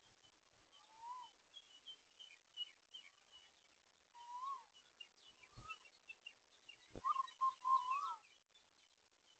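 Birds calling: a steady scatter of high chirps, with a few lower whistled notes that rise and fall and a quick run of them near the end. Two brief low thuds come a little after halfway.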